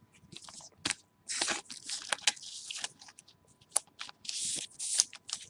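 Trading cards and their packaging being handled by hand: scattered clicks and short crinkling rustles.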